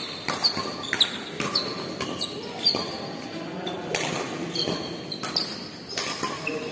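Badminton rally: rackets striking the shuttlecock with sharp cracks every second or so, and court shoes squeaking in short chirps on the court floor, echoing in the hall.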